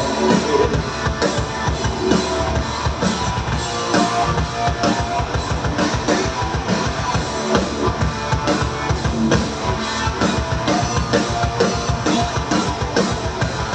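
Live rock band playing: drum kit with regular beats under distorted electric guitar and bass, in a loud, full mix.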